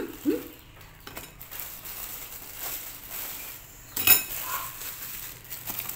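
Thin plastic bag of kerupuk crackers crinkling and rustling as crackers are pulled out of it, with a loud sharp crackle about four seconds in.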